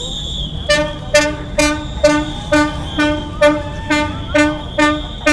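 A horn beeping in a quick, even rhythm, about two short toots a second, starting about a second in. A high steady whistling tone sounds at the very start and fades out.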